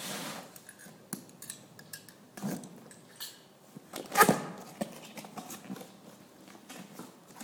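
Large cardboard box being handled and its flaps pulled open: scattered knocks, scrapes and rustles of cardboard, with one louder thump about four seconds in.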